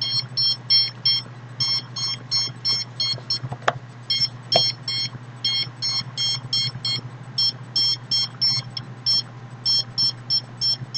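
Handheld RF/microwave detector beeping in rapid, irregular clusters of short high electronic beeps over a steady low hum, its alert for a detected signal, which the owner takes for microwaves aimed at her chest.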